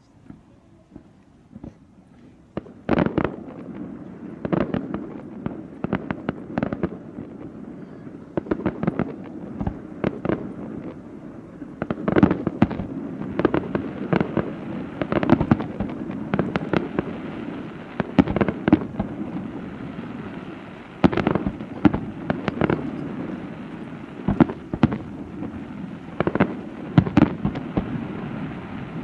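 Fireworks display: quiet for the first few seconds, then a rapid, continuing series of bangs and pops from about three seconds in, over a steady low rumble.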